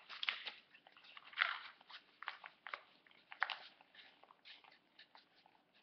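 A sheet of paper crinkling and rustling as it is rolled by hand into a tube, in irregular crackles; the loudest come about a second and a half and three and a half seconds in.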